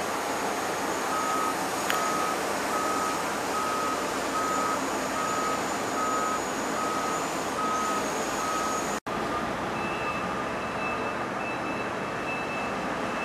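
Heavy-vehicle back-up alarm beeping steadily, about two beeps a second, over the noise of running trucks and equipment. After a sudden cut, a second, higher-pitched back-up alarm beeps.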